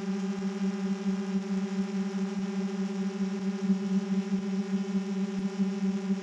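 GoPro Karma quadcopter's propellers and motors humming steadily in hover or flight, a constant buzzing drone at one pitch, heard from the camera mounted on the drone itself.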